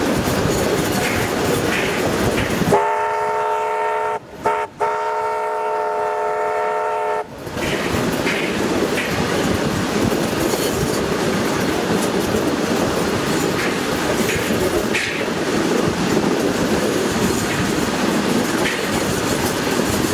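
Heritage passenger train running, a steady rumble with wheels clicking over rail joints, heard from a carriage window. About three seconds in, the locomotive's whistle sounds a chord of several notes for about four and a half seconds, broken twice very briefly.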